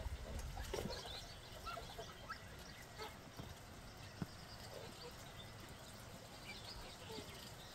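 Goslings giving soft, scattered peeps and calls while drinking at a water tub, with a few sharp clicks and small splashes of bills in the water. A low rumble in the first second or so.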